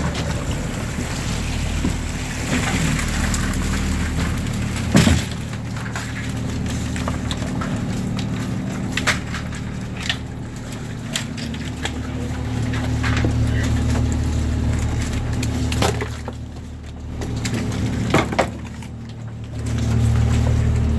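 Lobster boat engine running steadily, swelling louder partway through and again near the end, with scattered knocks and clatters, the sharpest about five seconds in.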